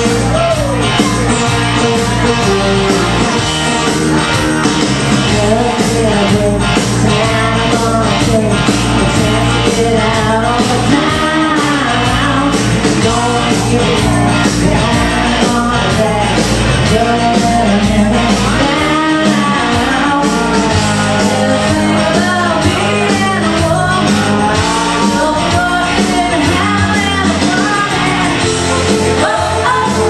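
A woman singing karaoke into a microphone over a recorded backing track with a steady beat.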